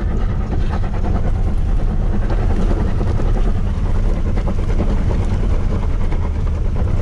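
Pickup truck driving up a steep dirt track, its engine pulling under load with a steady low rumble.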